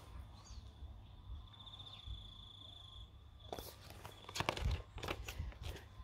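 Paper rustling and clicks of a picture book's pages being handled and turned, in a cluster after about three and a half seconds. Before that, a faint, steady, high pulsing trill.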